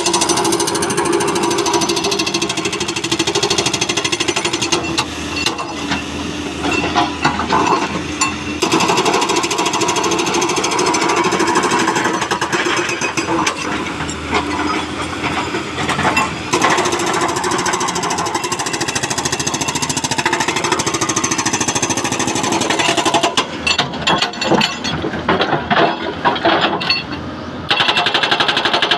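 Soosan SB81 hydraulic breaker on a Doosan DX225LCA excavator hammering rock in rapid, continuous blows, with a few short breaks near the end.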